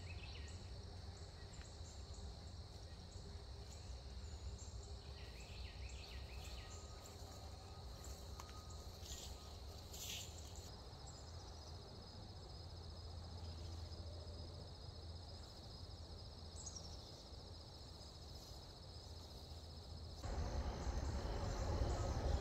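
Steady high-pitched trilling of an insect chorus, with a few short bird chirps in the first half and a low wind rumble on the microphone. Near the end the background gets louder.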